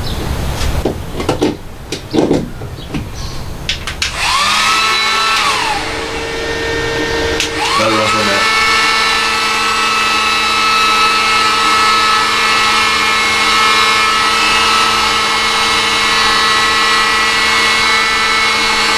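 A 1500-watt electric heat gun run from the van's inverter as a load test. First come a few clicks and knocks of handling. About four seconds in, its fan motor spins up with a rising whine, then winds down a couple of seconds later. Near eight seconds it starts again and runs steadily.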